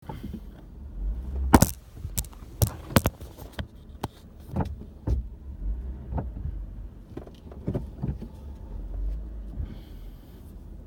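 Lexus IS with a low steady rumble and a string of sharp, irregular clicks and knocks, loudest in the first few seconds. This is the braking noise still present after a repair.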